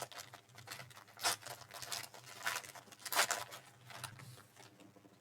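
Trading cards and their packaging being handled: irregular rustles, slides and light clicks, the loudest about three seconds in.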